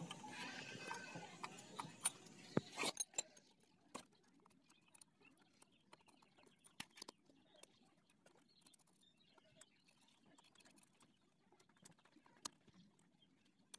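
Mostly near silence, with a few faint, scattered clicks and taps from hands working on an opened motorcycle engine, the loudest cluster about three seconds in.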